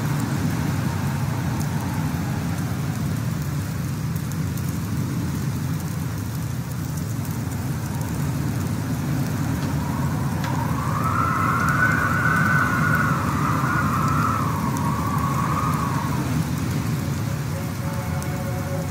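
Steady rumble of a car driving on a snowy road, heard from inside the cabin. About halfway through, a wavering higher tone swells and fades over several seconds.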